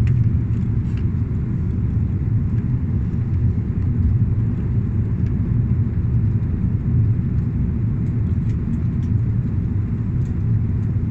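Steady low rumble of an airliner cabin during descent: engine and airflow noise heard from inside the cabin, even throughout.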